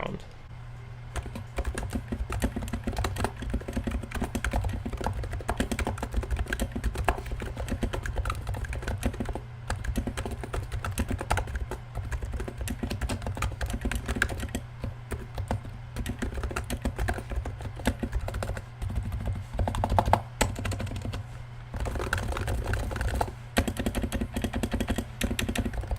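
Continuous typing on a lubed HHKB Professional 2 Type S, a silenced Topre-switch keyboard fitted with SA-profile keycaps on Topre-to-MX adapters: a dense, quiet stream of keystrokes with a few brief pauses.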